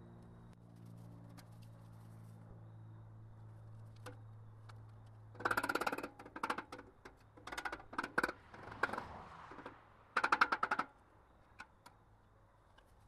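Hobart wire-feed welder tacking steel: four or five short crackling bursts of arc, each up to about a second long, starting about five and a half seconds in. Before the first burst there is a steady low hum.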